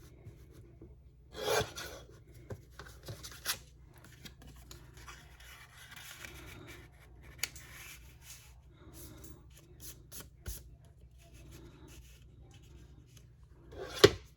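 Paper being handled on a tabletop: scattered rustles, rubbing and light taps, with one louder rustle about a second and a half in and a sharp knock near the end.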